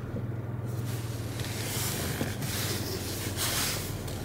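Land Rover Discovery 3 engine idling, a steady low hum, with a few short swells of hiss over it.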